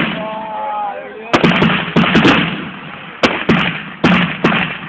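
Fireworks going off overhead: a quick run of sharp bangs, some in tight clusters of two or three, each trailing off into a crackling decay, the first one the loudest.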